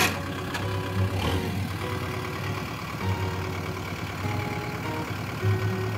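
Kubota M6040 tractor's diesel engine running at idle, a steady low chug, with a sharp knock right at the start and a couple of lighter clicks soon after.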